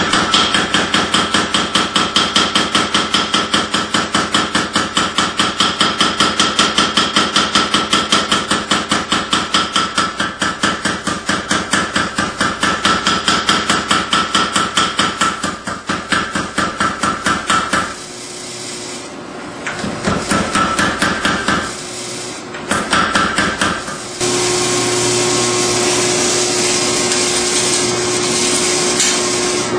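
A mechanical power hammer pounds red-hot blade steel with rapid, evenly spaced blows. Its blows break off about two-thirds of the way through, come back in two short runs, then stop, leaving the machine running with a steady hum.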